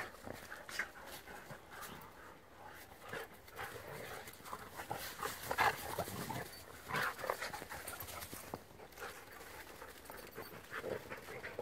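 Two Siberian huskies play-fighting: short, irregular dog noises and scuffling in dry leaves, with two louder ones a little past halfway.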